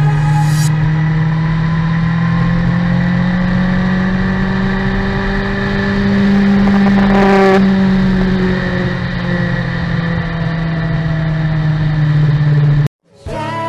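Motorcycle engine running at a steady road speed, heard from the bike's onboard camera with wind rush. Its pitch rises a little midway and then eases off. The sound cuts off abruptly near the end.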